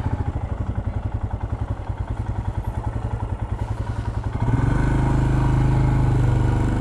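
Royal Enfield Himalayan BS6's 411 cc single-cylinder engine idling with an even, rapid thump of firing pulses. About four and a half seconds in, a louder, steadier engine hum comes in and holds to the end.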